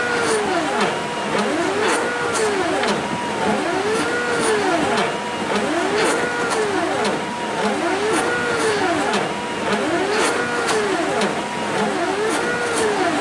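NEMA 23 stepper motors of a CNC-converted Sieg X2 mini mill whining as the axes run a G-code program. The pitch rises and falls about once a second as each short move speeds up and slows down, with scattered light ticks.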